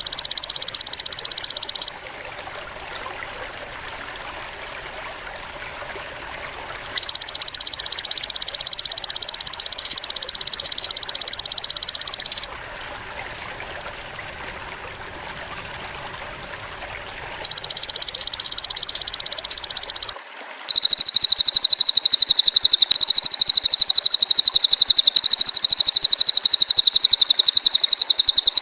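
Bird-training recording of a cililin bird and golden grasshopper: a high, rapid buzzing trill in bursts of a few seconds with short pauses between them. About 20 seconds in, a higher, layered trill starts and runs on without a break.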